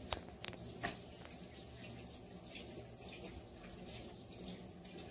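Faint room noise, with a few soft clicks in the first second.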